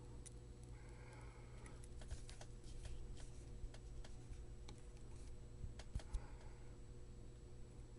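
Faint, scattered light clicks and taps of hand soldering on a circuit board, with two sharper clicks close together about three-quarters of the way through, over a steady low electrical hum.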